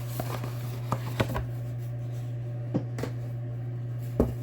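Packaging and a boxed card deck being handled by hand: a few light knocks and taps, the last and loudest near the end, over a steady low hum.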